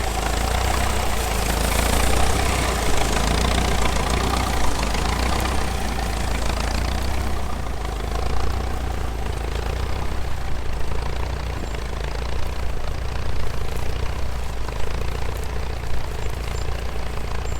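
A tractor engine running steadily, with a deep, even rumble.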